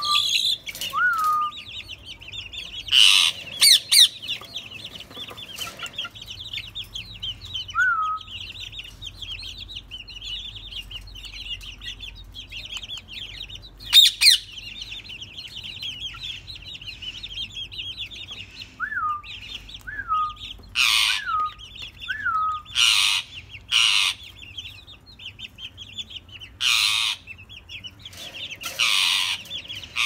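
Alexandrine parakeets calling: loud harsh squawks, a few near the start, one in the middle and a rapid run in the last third, among short whistled notes that rise and then drop. A steady high twittering of many small birds runs behind.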